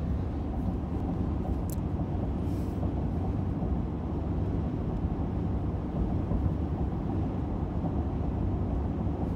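Steady low road and tyre rumble of a car driving at highway speed, heard from inside the cabin.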